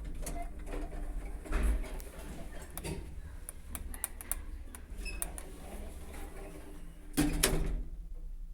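Inside a hydraulic passenger lift: a steady low hum with scattered light clicks and knocks, and one louder knock about seven seconds in.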